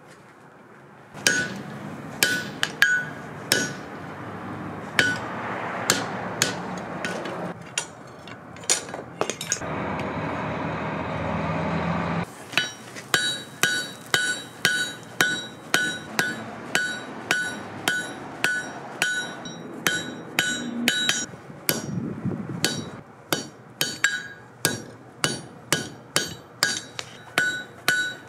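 Hand hammer striking hot steel on an anvil, the anvil ringing with each blow: scattered strikes at first, then a steady rhythm of about one and a half blows a second over the second half. A few seconds of steady rushing noise come in the middle.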